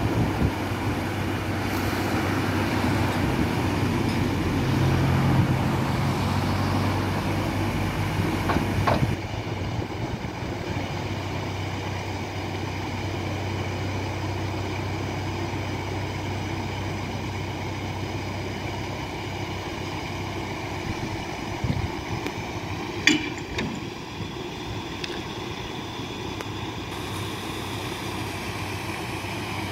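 Water rushing through the open paddles of the upper lock gates into a filling canal lock, with a narrowboat's engine giving a steady hum that is stronger for the first nine seconds. A single sharp knock about 23 seconds in.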